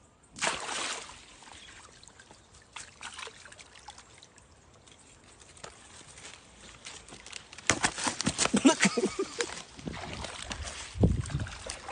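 Water splashing and sloshing at a river's edge, in short bursts at first and then louder and more continuous from about two-thirds of the way in, with a dull low thump near the end.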